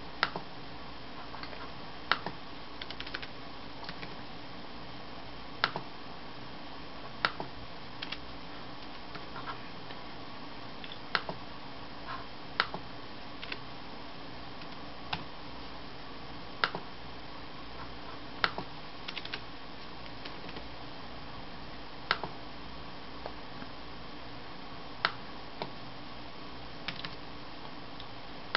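Samsung laptop's keys tapped in short runs while its touchpad is clicked sharply every second or two, over a steady background hiss.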